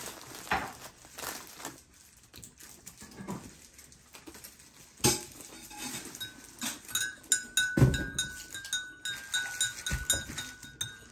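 Plastic cookie wrapper crinkling and tearing open, with sharp crackles and a few clinks of a spoon in a mug. A thin steady high tone sounds through the second half.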